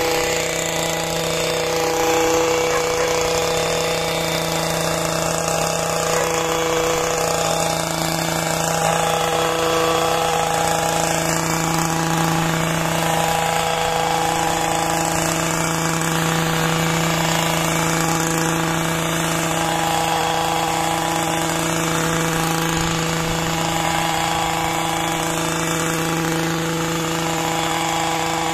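Small petrol engine of a long-reach hedge trimmer running steadily at high speed while it cuts the hedge, its pitch wavering slightly with the load.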